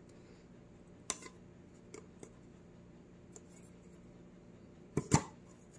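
Fingernail picking at the paper seal strip on a round metal snack tin: a few faint clicks and ticks, then two sharp clicks close together near the end as the tin's lid is worked loose.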